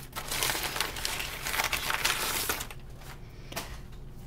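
Crumpled brown kraft packing paper crinkling and rustling as hands dig through it, for about two and a half seconds, then it goes quieter.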